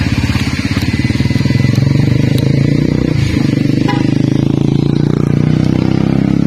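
Motorcycle engine running close by, a steady low drone that changes note about three seconds in.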